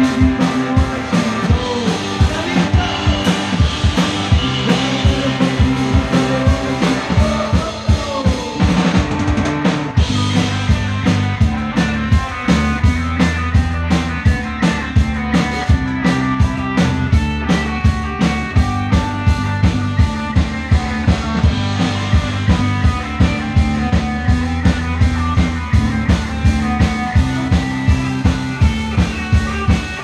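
A live rock band plays an instrumental passage on electric guitar, bass guitar and drum kit, with no singing. The drums keep a steady beat that gets busier about ten seconds in, under held bass notes and a lead guitar line.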